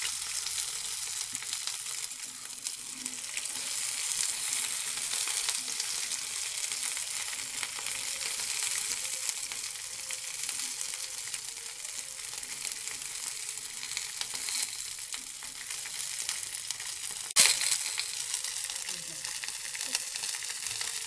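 Cut okra sizzling steadily as it fries in hot oil in a kadhai, with a spatula stirring it. A single sharp knock sounds about 17 seconds in.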